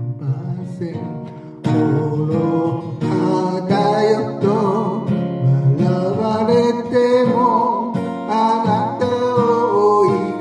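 Steel-string acoustic guitar strummed under a voice singing a slow Japanese ballad, the sung notes wavering with vibrato. After a softer opening a loud new chord is strummed about one and a half seconds in.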